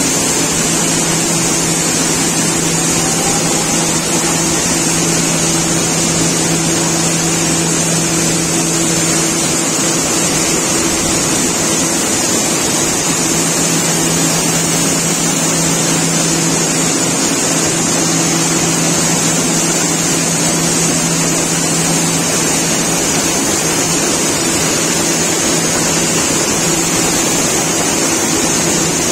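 Soybean seed-processing machinery (cleaner-grader and elevator) running steadily: a loud constant mechanical noise with a steady low hum under it.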